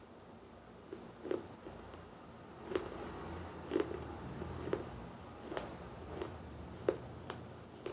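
Close-up crunching as a person bites and chews pieces of a small baked-clay diya: sharp, dry crunches about once a second.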